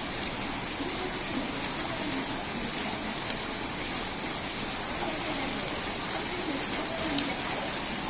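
Water splashing steadily down a stepped cascade of pebble-filled metal basins running alongside an escalator.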